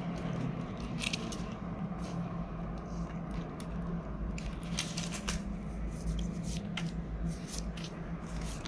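Hands handling a clear plastic zip pouch in a ring binder, with banknotes and coins: scattered crinkles and small clicks over a steady low background hum.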